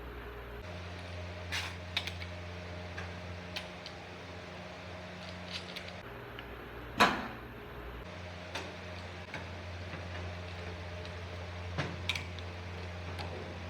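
Scattered clicks and light metal knocks from handling an angle grinder's parts during a disc change, over a steady low hum; one sharper knock about seven seconds in.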